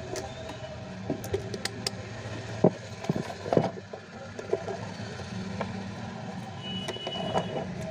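Scattered clicks and knocks of a multimeter and its test leads being handled, as its dial is turned to continuity (buzzer) mode, over a steady background hum. A short faint high tone sounds near the end.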